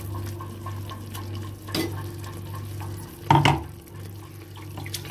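Ground masala paste being spooned and scraped into an aluminium pressure cooker of potatoes and peas: soft scraping and clinks of a spoon against the metal pot, with a sharper knock a little after three seconds. A steady low hum runs underneath.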